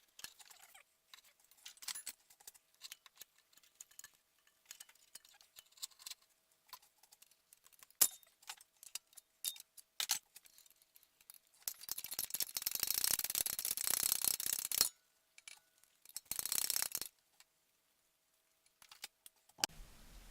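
Hand tools working on metal: scattered light clicks and clinks, with a few seconds of dense rapid clicking about twelve seconds in and a shorter burst a little later.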